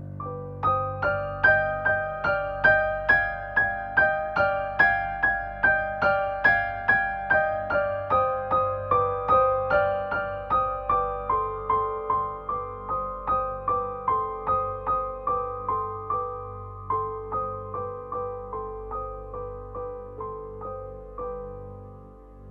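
Background music: a piano or keyboard playing evenly paced single notes, about two a second, in a gentle melody that drifts lower and softens toward the end.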